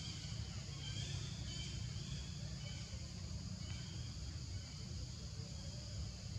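Forest ambience: a steady high-pitched insect drone, with a few short high chirps in the first few seconds, over a low rumble.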